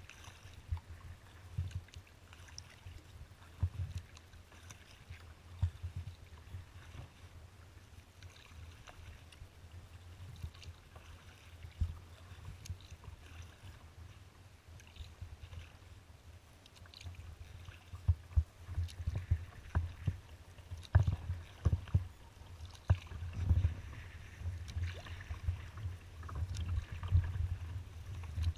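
Kayak being paddled on open water: paddle splashes and water slapping against the hull close to the bow, with low thumps. Fairly regular and light at first, louder and busier from about two-thirds of the way through.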